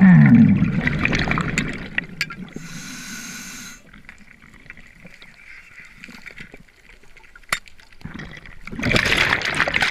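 Underwater sound of a spearfisher handling a steel spear shaft and a band-powered speargun. A loud rush of water at the start fades over a few seconds. Scattered sharp clicks and knocks of metal on rock and gun follow, and another loud rush of water comes near the end.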